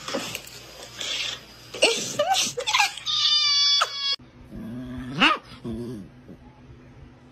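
A ginger kitten screams loudly and shrilly for about a second, upset at having dropped what it was holding. After short cries and a sudden cut, a dog growls and whines, with one rising whine.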